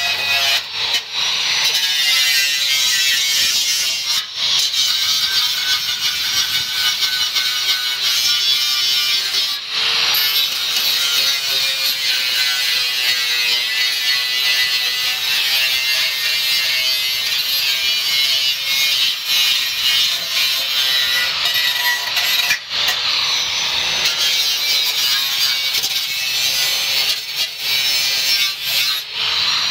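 Electric angle grinder with a cutoff wheel cutting through the edge of a Honda Civic's sheet-steel fender. It runs almost without pause, with a few brief breaks, and its pitch wavers as the wheel bites into the metal.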